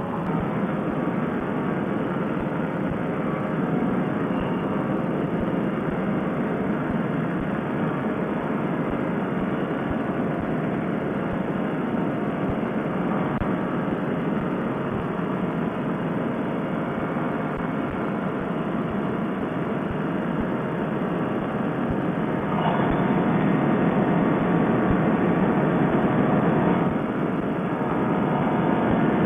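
Paramotor trike's Fresh Breeze Monster two-stroke engine and propeller running steadily in flight. The sound grows louder for about four seconds near the end.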